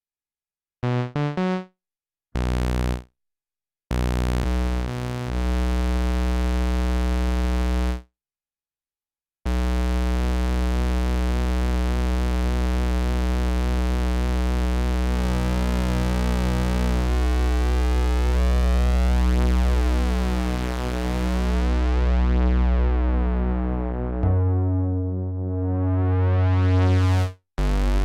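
Sequential Prophet 6 analog polyphonic synthesizer played dry, with no effects: a few short notes separated by silent gaps, then a long held chord over a deep bass. Near the end the filter sweeps down and back up, and the sound cuts off briefly before a new chord starts.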